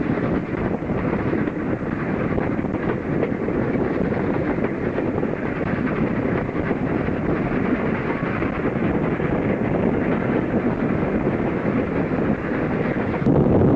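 Steam train running: a steady rushing rumble with wind on the microphone, getting louder near the end.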